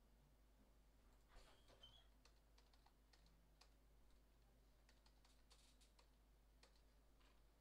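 Faint computer keyboard keystrokes: scattered taps coming in short, uneven clusters.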